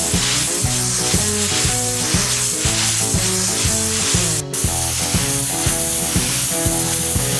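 Hot-water pressure washer spray hissing steadily against aggregate concrete, over background music with a steady beat. Both drop out briefly about halfway through.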